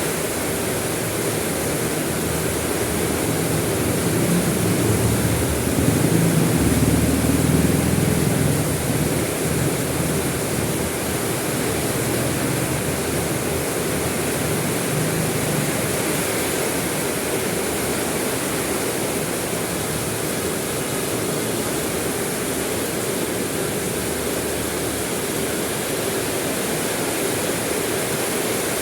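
Steady rain, a constant even hiss. A low rumble swells up about four seconds in and fades by about ten seconds.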